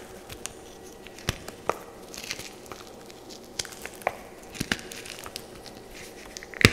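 Chunks of blue-dyed gym chalk crunched and crumbled between fingers: scattered sharp crackles and snaps, with a louder snap near the end.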